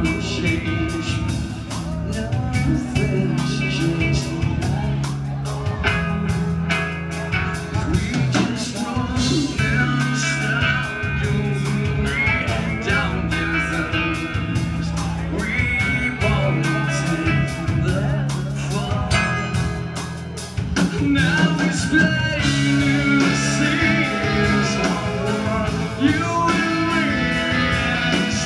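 Live rock band playing: electric guitars, bass and a drum kit with steady rhythmic hits, and a singer's voice over them.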